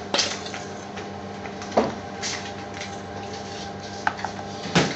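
Steady mechanical hum of a kitchen, with a few faint steady tones in it, broken by several light clicks and knocks: one at the very start, one near two seconds, and two near the end.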